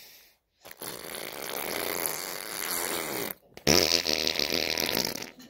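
A baby making raspy tongue noises. The first lasts about two and a half seconds, and after a brief break a louder one follows for about a second and a half.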